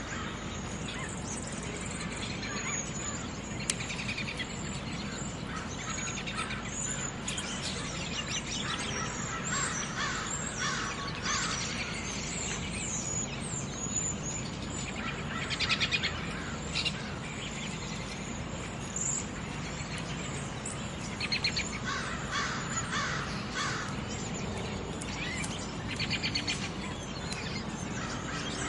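Many wild birds chirping and calling together over a steady background hum, with a few louder calls standing out now and then, mostly in the second half.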